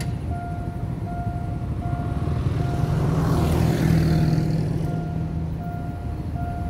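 Railroad crossing warning signal sounding a single electronic tone over and over, a little more than once a second, warning of an approaching train. Partway through, the engine and tyre noise of a road vehicle swells up, peaks about halfway, and fades.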